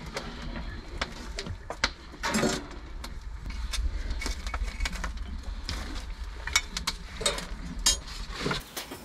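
Irregular wooden knocks and clinks as firewood is handled at a wood-fired cauldron, over a low steady rumble.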